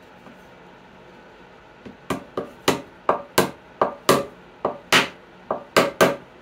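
A small metal hammer tapping a glued wooden plug into a hole in the corner of a sassafras box: about a dozen sharp taps, roughly three a second, starting about two seconds in.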